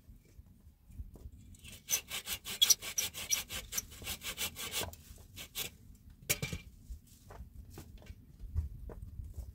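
Wood being sawn by hand with a saw. A quick run of strokes, about six a second, starts a second and a half in and lasts some three seconds. Slower, scattered strokes follow.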